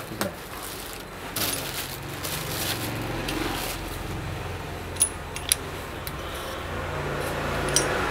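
Plastic wrapping and a cardboard sleeve crinkling and rustling as a new part is unwrapped by hand, with a few sharp clicks, two of them about five seconds in.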